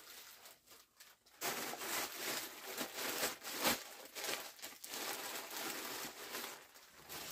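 Packaging being crumpled and handled, a dense crinkling rustle that starts about a second and a half in and keeps on in irregular bursts.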